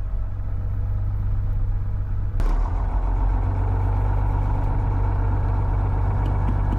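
Idling of a 1967 Cessna 172H's Continental O-300 six-cylinder engine, steady. About two and a half seconds in the sound suddenly gets fuller.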